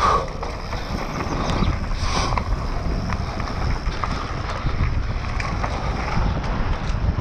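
Mountain bike riding fast down a dirt forest trail: wind buffeting the microphone over a steady rumble of tyres on dirt, with scattered clicks and rattles from the bike's chain and frame.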